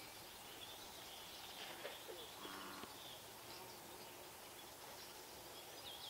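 Faint, scattered high bird chirps over steady outdoor background noise, with a brief low tone a little over two seconds in.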